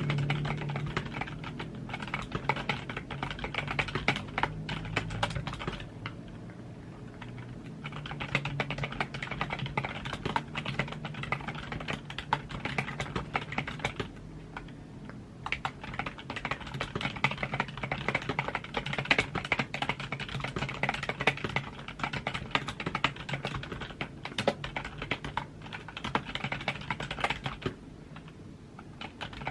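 Computer keyboard typing: fast runs of key clicks, with short pauses about six seconds in, about fourteen seconds in and near the end.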